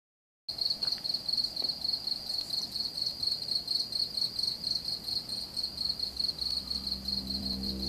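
Crickets chirping in a steady, fast pulsing high trill. Near the end, a low droning hum of several tones begins to fade in beneath them.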